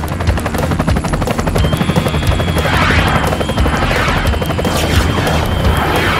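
Cartoon sound effect of a helicopter's rotor chopping fast and steadily, with several whooshing sweeps about a second apart and a thin high steady tone that comes in about a second and a half in.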